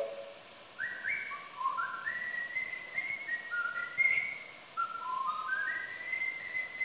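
A person whistling a slow melody of held notes that step up and down, played back from a recorded sound piece over loudspeakers. The whistling starts about a second in with two quick upward slides into the first notes.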